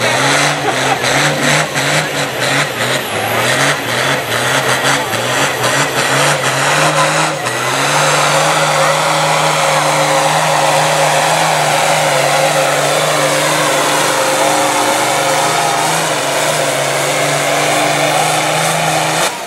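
Pulling tractor's engine revved in quick blips at the starting line. It then runs at a steady full throttle while dragging the weight sled, with a high whine that slowly falls in pitch. The engine is cut sharply just before the end.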